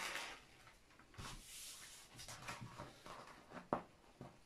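Faint rustling of a large Huacan diamond-painting canvas and its printed paper covering as it is handled and lifted, with a few light taps.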